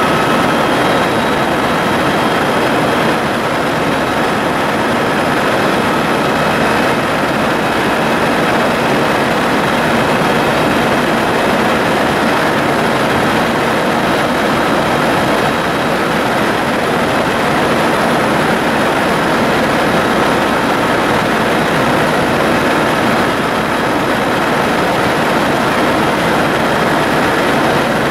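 Tour helicopter in steady cruising flight: its turbine engine and rotor make a loud, unbroken noise with a thin steady whine on top.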